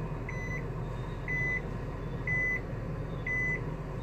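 A vehicle warning beeper giving four short, even beeps about once a second, all at the same high pitch, over the low steady rumble of an idling car.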